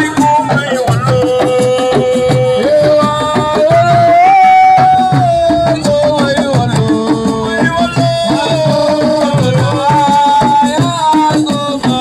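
Assiko band music: hand drums playing a dense, driving rhythm under a lead voice singing long held notes that slide up and down.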